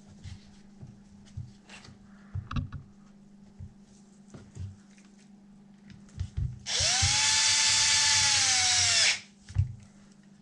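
Cordless power drill running for about two and a half seconds, its whine dropping in pitch as it stops, with a few light knocks and clicks of handling before it.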